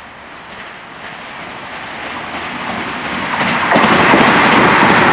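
Hyundai Rotem HRCS2 high-speed electric train approaching at speed. Its rushing noise grows steadily louder, then jumps sharply and stays loud as it passes close by, about three and a half seconds in.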